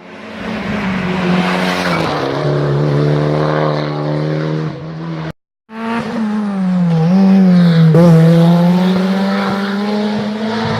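Race car engines at high revs on a hillclimb run, with the pitch dropping and shifting at gear changes. A cut about five seconds in leads to a second pass at full throttle, its pitch dipping briefly twice near the end.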